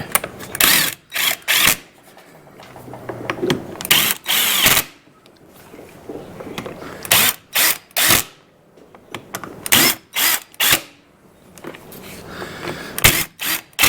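Power tool running the scooter's front wheel nuts onto their studs in a dozen or so short bursts, to get them all on thread before torquing.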